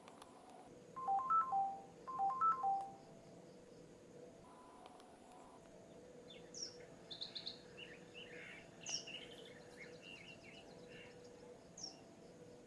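Ringtones playing on an au SH006 flip phone made by Sharp. First comes a short electronic phrase of a few beeping notes, played twice a second apart, then quieter bird-like chirping for several seconds.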